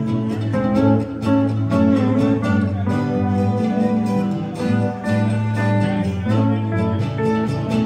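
Live string band playing an instrumental passage: plucked guitars over a steady bass line and a regular beat.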